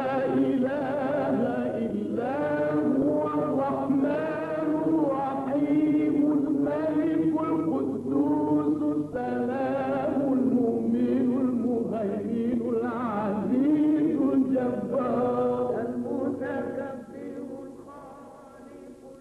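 Male vocal chanting with a long, wavering, ornamented melody line, fading out over the last few seconds.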